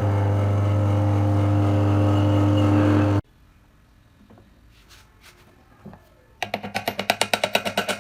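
Steady electric motor hum that cuts off abruptly about three seconds in, followed by a few faint clicks; near the end a fast rhythmic pulsing starts.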